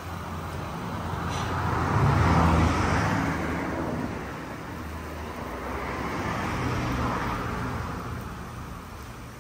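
Road traffic: two motor vehicles pass by one after another, each engine and tyre noise swelling and then fading, the first louder than the second.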